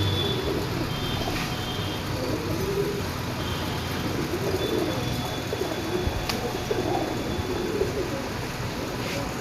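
Punjabi pigeons cooing: repeated low, warbling coos from several birds over a steady background noise.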